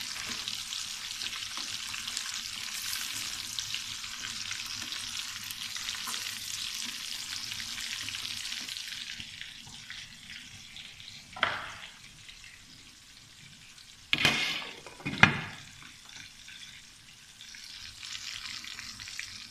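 Chicken pieces deep-frying in hot oil in a wok, a steady crackling sizzle as a spatula turns them. The sizzle fades out about halfway, followed by three loud knocks, and the frying sizzle comes back faintly near the end.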